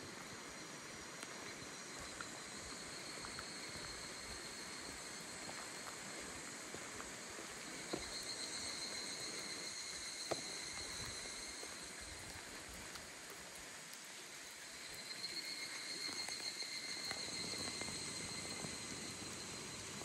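Faint outdoor ambience: a steady soft hiss with a high insect drone that swells about eight seconds in and again near the end.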